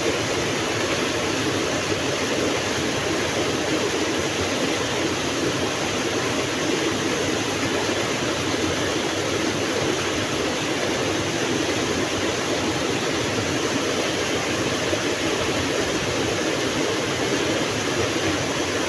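Steady rush of river water flowing over rocks and a small cascade, an even, unbroken sound.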